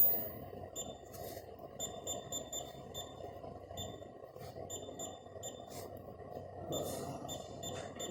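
Short, high electronic beeps at irregular intervals, several close together, over a low steady hum of equipment.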